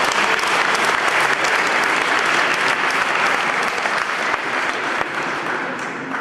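Spectators clapping steadily, the applause thinning out near the end.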